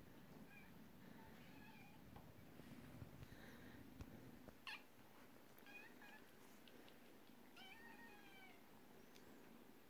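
Kittens mewing faintly: a few short calls spread through, with one sharp click near the middle.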